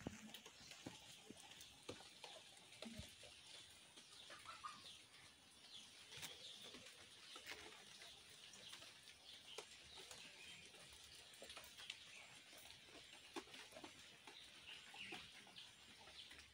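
Near silence: faint outdoor ambience in a wet garden, with scattered soft ticks and faint distant bird calls.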